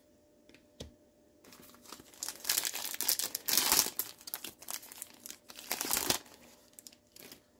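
Foil wrapper of a trading-card pack crinkling as it is handled, from about a second and a half in until about six seconds in, with a few short clicks near the end.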